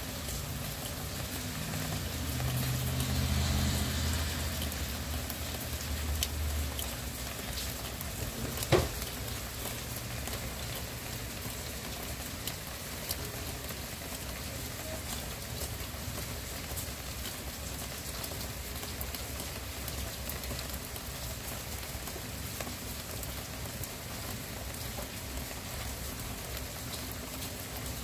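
Steady rain falling, with scattered drop taps. A low rumble swells and fades in the first seven seconds, and a single sharp tap about nine seconds in is the loudest sound.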